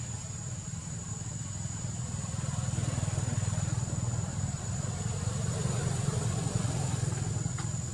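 An engine running steadily: a low rumble that grows a little louder about two seconds in, with a thin steady high whine above it.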